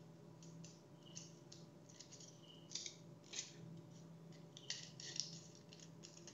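Scissors cutting through a sheet of aluminium foil: a series of short snips and foil crackles at an uneven pace, the strongest a little under three seconds in and again around five seconds in.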